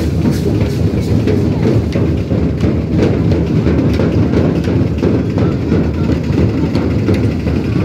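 Loud, continuous drumming over the noise of a crowd, with many sharp strikes throughout.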